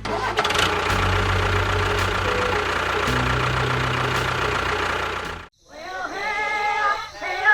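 Tractor engine running steadily, cutting off abruptly about five and a half seconds in. Short wavering, voice-like sounds follow.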